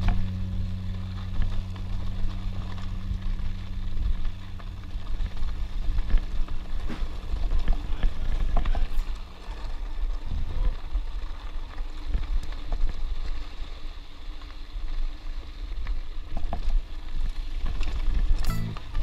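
Mountain bike ridden fast down a dirt and gravel trail: tyre rumble, wind on the microphone and scattered clicks and rattles from the bike over bumps. A low steady tone underneath stops about halfway through.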